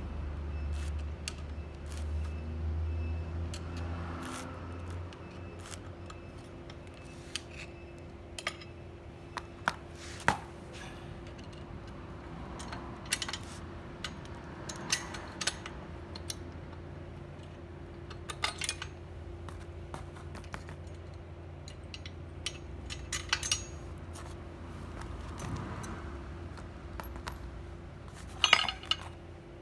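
Metal parts of a high-lift jack clinking and tapping as they are handled and worked on during a parts replacement: irregular sharp clicks and clinks, some in quick clusters, over a steady low hum.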